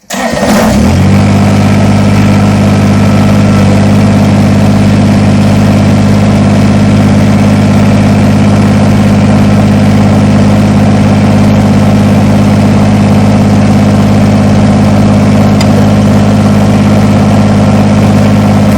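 Kubota BX compact tractor's three-cylinder diesel engine running loud and steady, coming in suddenly at the start and holding an even pitch, as it drives the backhoe hydraulics to lower the stabiliser legs.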